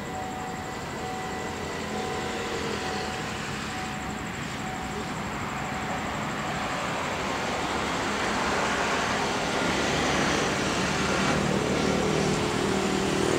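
A steam locomotive approaching along the track, its running noise growing steadily louder.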